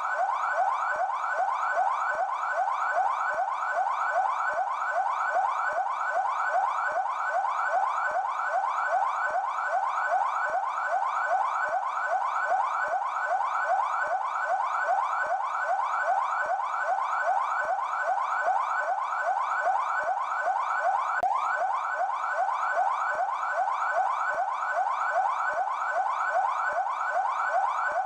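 Police car electronic siren of the São Paulo Military Police (PMESP) sounding in yelp mode: a fast, evenly repeating rising wail that holds steady throughout.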